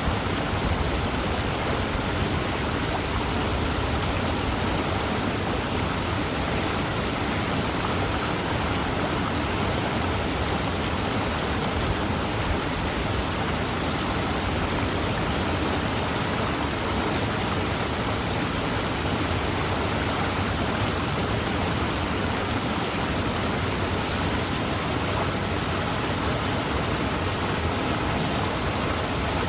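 Fast-moving river: a steady, even rush of running water with no breaks or changes.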